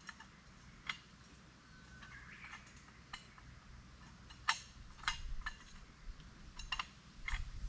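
A series of sharp, light clinks and knocks, about a dozen, the loudest a little past the middle and near the end, over a faint background with a few small bird chirps.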